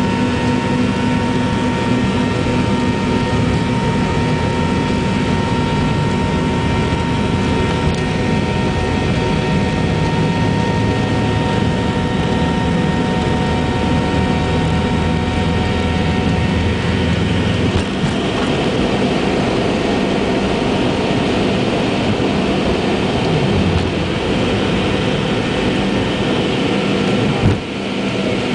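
MD-82's rear-mounted Pratt & Whitney JT8D turbofans running at takeoff power, heard inside the cabin: a loud steady noise with several whining tones, over a low runway rumble that drops away about two-thirds through as the jet lifts off. A single short thump near the end.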